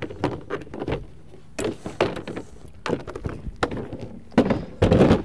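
The Honda CR-V's fold-out boot-floor picnic table being unfolded: its hinged metal tube legs click and knock as they swing out against the plastic top, with a louder clatter near the end as the table is set up on the ground.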